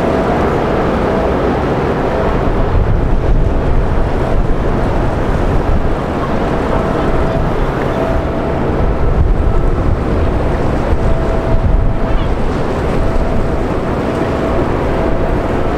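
Large container ship passing at close range: a steady low rumble and water washing along the hull, with wind buffeting the microphone. A faint hum comes and goes throughout.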